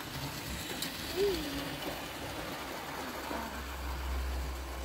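Hornby model train, a steam-outline locomotive pulling coaches, running along the track with a steady mechanical whirring and rattling of motor and wheels. A brief rising-and-falling squeak about a second in.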